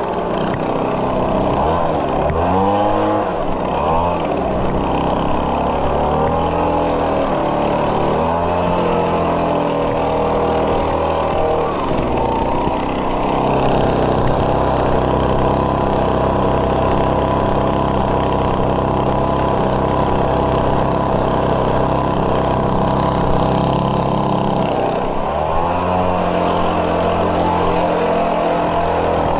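Small gasoline engine of lawn-care equipment running. Its pitch rises and falls over and over for the first dozen seconds, holds steady for a long stretch, then dips and rises again near the end.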